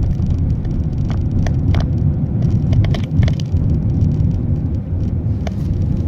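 Road and engine rumble of a moving car heard from inside the cabin, a steady low drone, with a few brief light clicks scattered through it.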